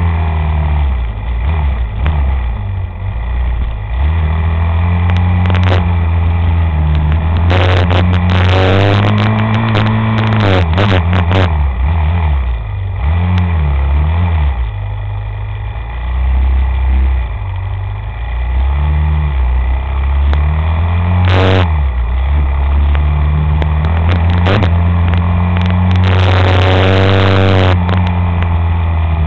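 A vehicle engine running, its pitch rising and falling several times as it revs up and eases off.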